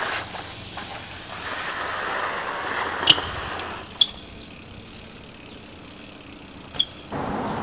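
A road vehicle passing by, swelling and then fading, with three sharp clicks in the middle and near the end.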